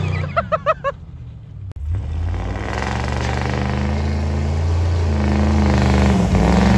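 Cammed 6.0-litre V8 of a Chevy Silverado running under heavy throttle as the truck drives through snow and mud. The engine sound breaks off briefly just under two seconds in, then climbs louder and fuller toward the end.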